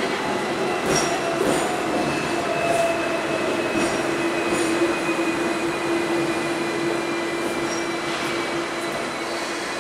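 Hong Kong double-decker electric tram running along its street track, heard from inside the upper deck: a steady rumble of wheels on rail with a few sharp clicks in the first half, and a steady whine held through most of the stretch that fades near the end.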